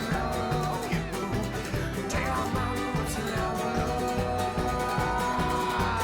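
Background music: a country-style song with guitar over a steady beat.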